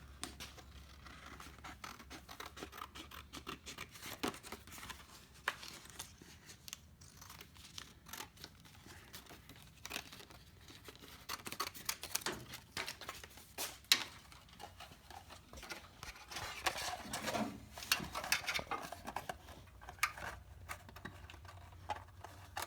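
Scissors cutting out a bracket template: a faint, irregular string of snips and scratching, with one sharper click about 14 seconds in.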